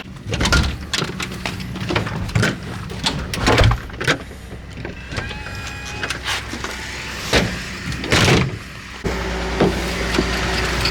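Knocks and clatter of a car door and someone settling into the car, then a car engine starts and runs with a steady low hum about nine seconds in.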